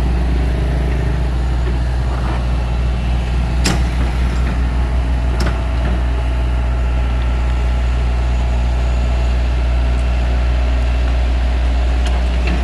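Tatsuo excavator's diesel engine running steadily under work, a deep, even drone. A couple of sharp clicks or knocks come about four and five and a half seconds in, and again near the end.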